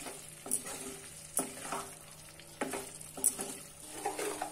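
Wooden spatula scraping and turning fried cauliflower florets through sizzling masala in a nonstick kadai, about five strokes over a steady light sizzle.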